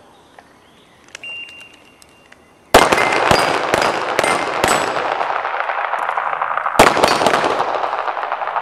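Handgun fire at steel targets. About a second in there is a short steady electronic beep, the start signal. Then a rapid string of pistol shots comes over about two seconds, with one more shot about four seconds later, and the steel plates ring and echo around the range.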